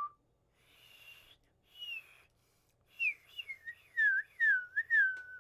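A person whistling with the mouth: two short, breathy high whistles, then a run of quick wavering notes that slide down in pitch. This is the inward whistle, whistled while breathing in, being tried out.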